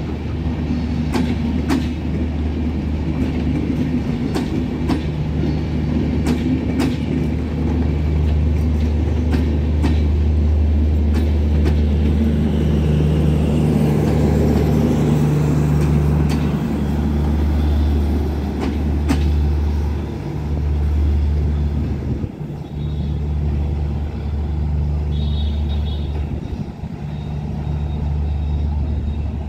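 Bangladesh Railway intercity passenger train rolling past close by: a steady low rumble with wheels clicking over rail joints, the clicks thinning out after the first half as the last coaches go by and the rumble carries on as the train moves away.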